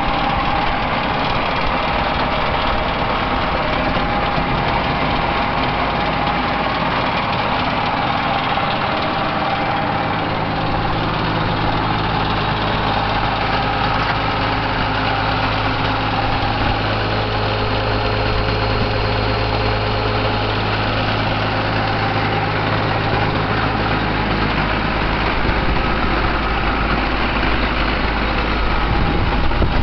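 Case IH MX110 tractor's diesel engine running steadily at idle.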